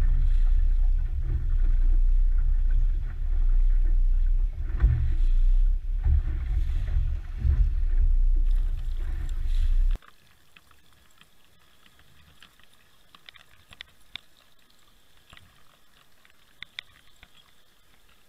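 A steady low rumble aboard a small fishing boat on open water, swelling and easing. About ten seconds in it cuts off sharply to faint, muffled underwater sound with scattered small ticks.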